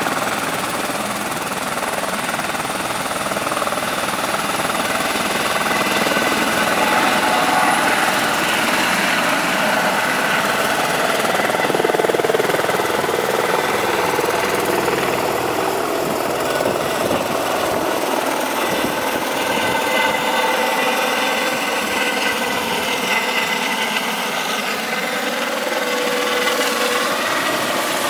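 Eurocopter EC130 air-ambulance helicopter running at flight power, lifting off and climbing overhead: a loud, steady turbine and rotor sound with a high whine. Its tones waver in pitch in the second half as it passes overhead.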